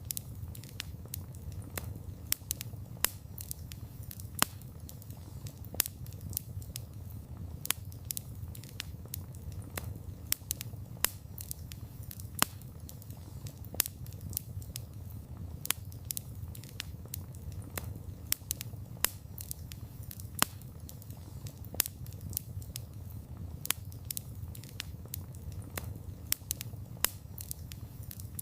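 Wood fire burning with a steady low rumble of flames and frequent sharp, irregular crackles and pops from the burning wood.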